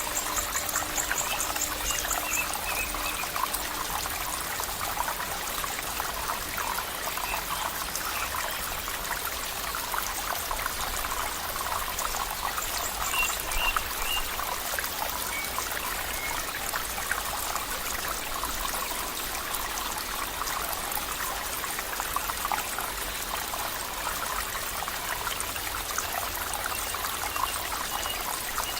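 A stream of water flowing and trickling steadily, with a dense bubbling, splashing texture. A few faint high chirps come through, one trill near the start and a couple about halfway.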